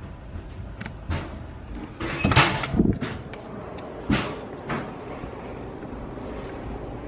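A door being handled and opened: a series of knocks and rattles, loudest about two to three seconds in, with single knocks before and after.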